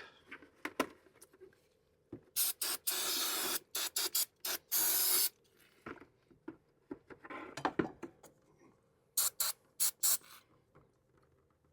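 Aerosol brake cleaner sprayed onto a motorcycle brake caliper in several hissing bursts, the longest lasting a few seconds, with shorter spurts later, to wash off black brake dust.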